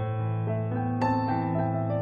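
Background music on a soft piano-like keyboard: sustained chords, with a new note struck about a second in.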